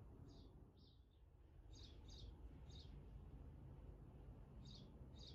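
Near silence with faint, short high chirps of a small bird, about seven of them, some in quick pairs, over a low steady room rumble.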